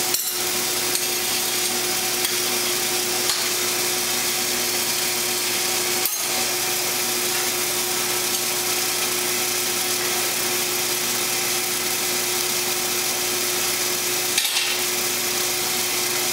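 Forge blower running: a steady rushing hiss with a constant low hum, a few faint clicks about six and fourteen seconds in.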